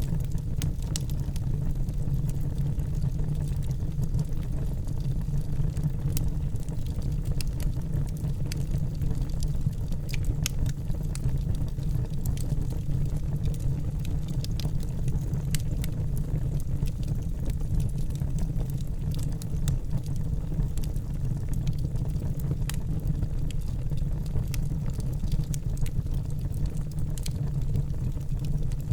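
Wood fire burning in a fireplace: a steady low rumble of the flames with scattered irregular crackles and pops from the burning wood.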